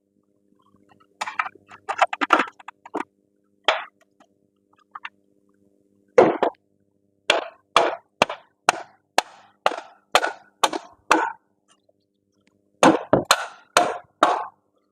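Hammer blows on metal on a car's front strut and suspension: a few scattered strikes, then a steady run of about two blows a second, then a quick flurry near the end, each a sharp ringing clang. The part is not yet freeing, as the 'bigger hammer' remark right after shows.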